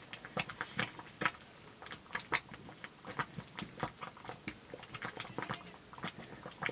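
Wooden stick stirring a thick porridge in a metal pot, with irregular knocks and squelchy clicks several times a second as it works the stiff mass and strikes the pot.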